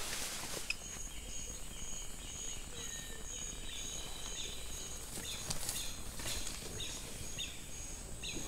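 Forest insects chirring, one high note pulsing about twice a second, with bird chirps and a few light knocks in the second half.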